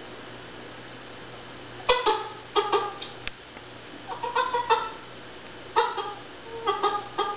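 Bullmastiff making short, chicken-like clucking vocalizations, in quick clusters of two or three calls starting about two seconds in, over a faint steady hum.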